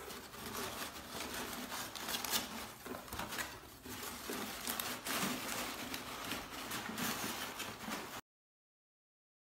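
Crumpled paper rustling and crinkling in a cardboard box as a dog noses and digs through it for hidden treats, with small irregular crackles and scuffs. It stops abruptly about eight seconds in.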